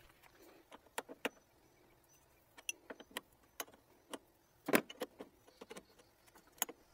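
Irregular light metallic clicks and clinks of hand tools working a car battery's terminal clamp loose, the loudest a little under five seconds in.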